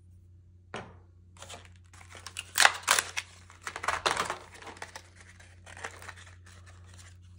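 Packaging being torn open and crinkled by hand: a run of irregular scratchy rips and rustles that starts about a second in and is loudest in the middle.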